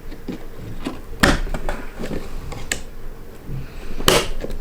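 Sharp plastic clicks and knocks from a RAM stick being pressed into a motherboard memory slot, with the strongest click near the end.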